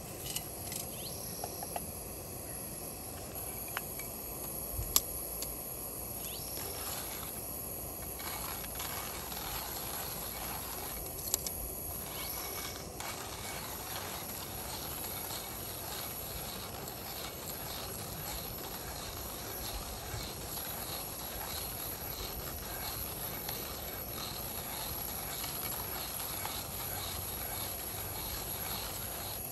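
Paper coffee filter and plastic dripper being handled: light rustling and a few sharp clicks, the sharpest about five and eleven seconds in, over a steady hiss with a thin high tone.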